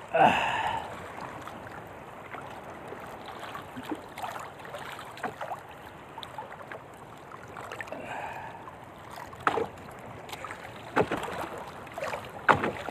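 Choppy sea water sloshing and lapping against the hull of a small outrigger canoe, with a few sharp knocks in the last few seconds.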